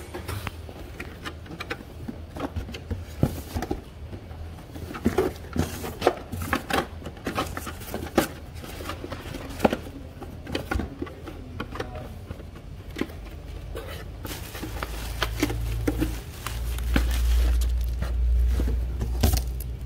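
Irregular clicks, taps and rustles of a cardboard product box and the camera parts inside it being handled and packed back in. From about fifteen seconds in, a low rumble sits underneath.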